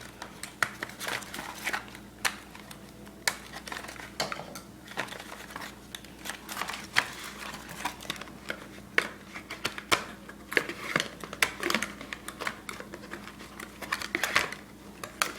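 Plastic packaging crinkling, with irregular clicks and taps as small plastic toy parts are handled and pulled out.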